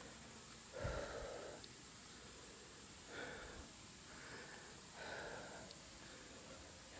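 A person breathing out sharply three times, about two seconds apart, close to the microphone; the first comes with a low thump.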